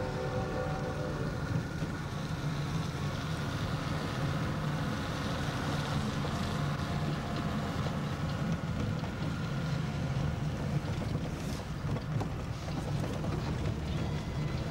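Vehicle engine and tyre noise heard from inside the cab while driving on an unpaved mountain road: a steady low drone, with a higher whine that fades out in the first second or two.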